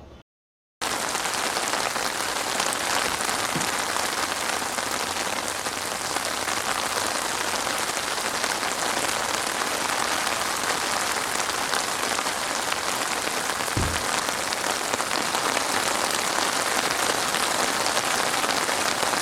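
Steady, even hiss like heavy rain or static, starting abruptly about a second in after a short dead silence, with a faint low thump twice.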